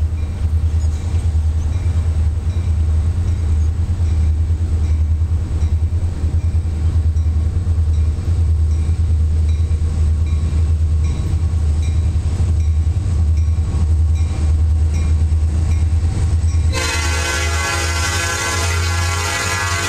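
A steady low rumble, then about seventeen seconds in the air horn of Norfolk Southern SD40-2 locomotive 3255 starts one long blast as the train approaches.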